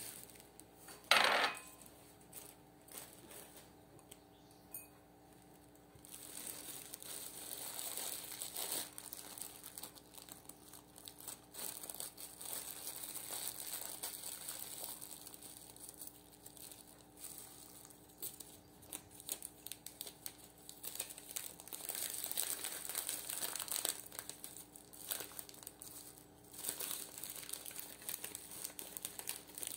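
Clear plastic bags and disposable plastic gloves crinkling and rustling as loose dried tea is handled and packed, with one sharp clink about a second in.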